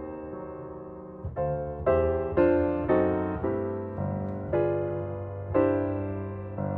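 Background piano music: notes and chords struck about every half second and left to die away.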